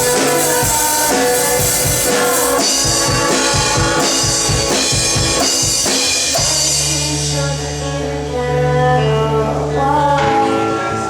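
Student rock band playing live: drum kit, bass and guitar under a sung melody. About six seconds in, the steady drum beat gives way to long held bass notes for a few seconds, and the drums come back near the end.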